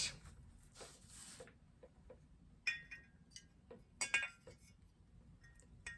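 Faint scattered clinks and taps of salt and pepper shakers being handled and set down, with two slightly louder knocks near the middle.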